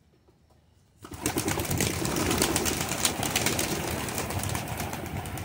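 A flock of Pakistani high flyer pigeons taking off together about a second in: a sudden, loud clatter of many wings flapping that slowly tapers off.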